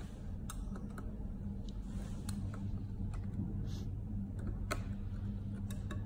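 Scattered light clicks and taps from wire ends and a screwdriver being worked at the screw terminal block of a door-lock power supply, with a short scrape about two-thirds of the way in, over a steady low hum.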